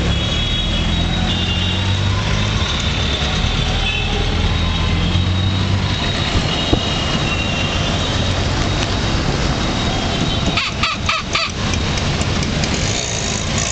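Auto-rickshaw engine running in dense city traffic, with vehicle horns beeping on and off. About ten and a half seconds in, a horn gives a rapid run of five or six short beeps.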